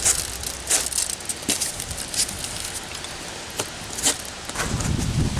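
Scattered clicks, taps and rustles of tools and materials being handled, with a heavier low rumbling of handling starting near the end.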